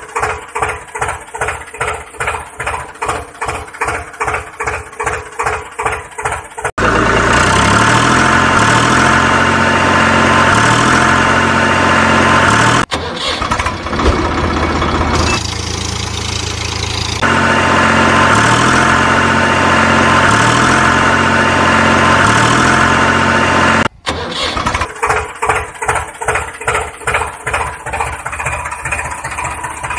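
Tractor engine sound effect: a rhythmic chugging idle of about three beats a second. About seven seconds in it switches to a louder, steady engine sound, which returns to the chugging idle about six seconds before the end.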